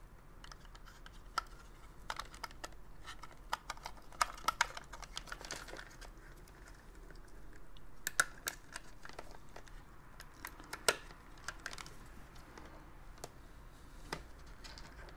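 Scattered, irregular light clicks and taps of a plastic sewing-machine foot pedal housing and its circuit board being handled and fitted together in gloved hands.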